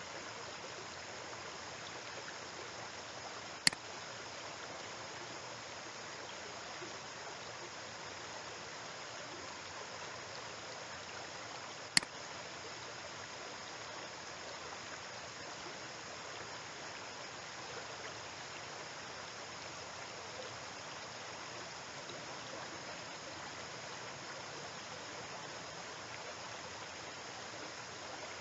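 Steady, even hiss with two sharp single clicks of a computer mouse button, one a few seconds in and another about twelve seconds in.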